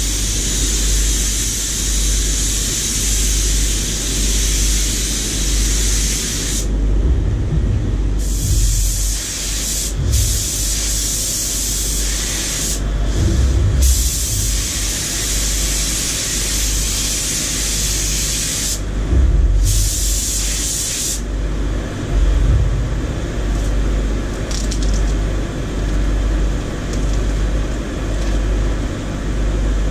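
Compressed-air gravity-feed paint spray gun hissing as it sprays paint, in long passes broken by several short pauses, then stopping about two-thirds of the way through. A steady low hum from the spray booth's air handling runs underneath.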